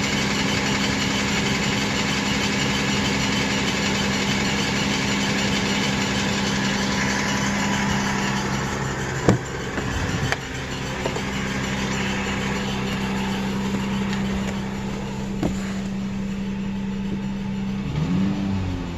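Toyota Tacoma engine idling on a cold start with a squeaky noise and a knock/rattle, the kind that goes away once the engine reaches normal operating temperature. A couple of sharp clicks sound partway through, and the pitch dips and recovers briefly near the end.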